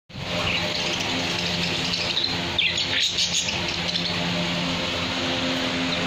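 Caged birds chirping, a steady chatter with a cluster of sharper, louder chirps about halfway through, over a faint steady low hum.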